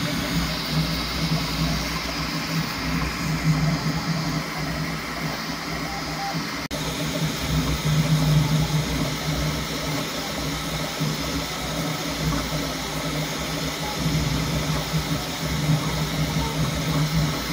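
Bambu Lab P1S 3D printer running mid-print: a steady fan hiss with a low motor hum that swells and fades as the toolhead moves. There is a brief dropout about seven seconds in.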